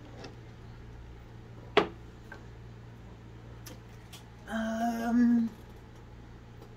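A single sharp knock about two seconds in, then a woman's short held hum lasting about a second, over a faint steady low hum.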